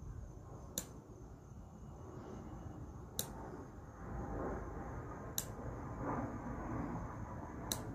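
Thorsen 77 half-inch-drive 30-tooth ratchet being slowly worked, its pawl clicking over the teeth: four sharp single clicks about two seconds apart. Its rusted pawl spring is weak, shimmed with plastic just enough to work, so the drag is very low. A low background rumble grows from about halfway.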